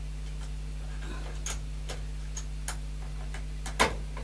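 Small sharp plastic clicks and taps as a fuse is pushed back into its holder on a gas boiler's electronic board, about half a dozen, the loudest near the end. Under them runs a steady low electrical hum.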